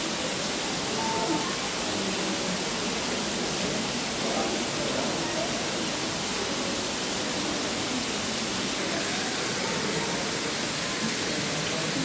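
Steady rushing water noise from the aquarium tank, with faint voices in the background.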